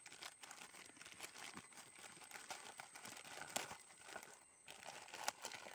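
Plastic courier mailer bag being torn open and crumpled by hand: faint crinkling and rustling of the plastic, with scattered small ticks.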